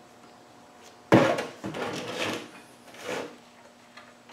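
Hand-turned scraping and rubbing noises as the plug on top of a Land Rover Defender 300Tdi radiator is unscrewed. It starts sharply about a second in, and several more rubbing sounds follow over the next two seconds.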